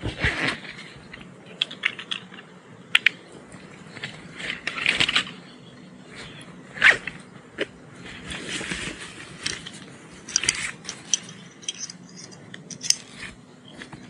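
Scattered rustles, scrapes and light clinks of litter being handled and gathered up by hand, in short irregular bursts.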